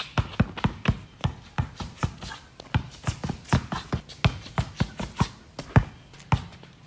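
Basketball dribbled hard and fast on a concrete court, in uneven bounces about four a second.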